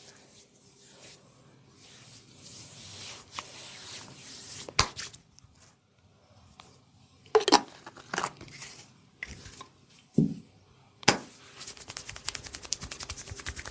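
Massage by hand: soft rustling of hands on skin and cloth, then several sharp pops spread over a few seconds, then fast rhythmic rubbing and scratching strokes near the end.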